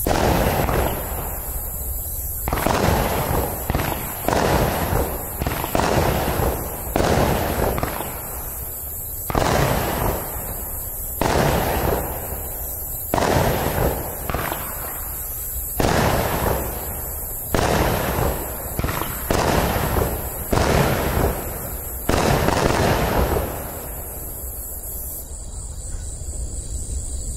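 Iskra POTOK 16-shot, 18 mm fireworks cake firing: a string of shots bursting in sharp bangs about a second apart, unevenly spaced, each ringing out briefly. The bangs stop a little over twenty seconds in.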